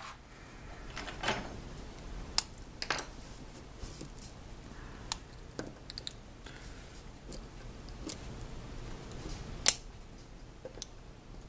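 Small metal clicks and scrapes of a precision screwdriver and tiny screws being worked out of an iPhone 4's side frame, scattered and irregular, with one louder sharp click near the end.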